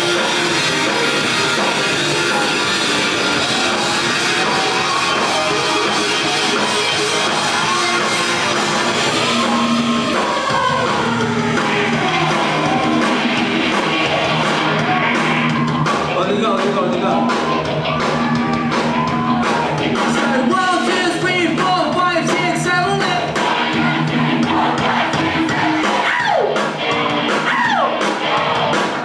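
Live rock band playing, with drums, guitars and a lead vocal singing over them.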